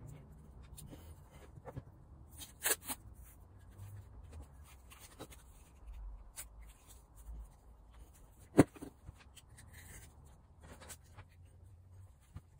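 Masking tape being worked onto small metal vice parts: soft rustling and scratching with scattered small clicks, the sharpest a little past the middle.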